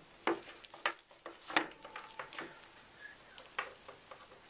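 Irregular clicks and rustles of power-supply cables and plastic connectors being handled. The loudest click comes about one and a half seconds in.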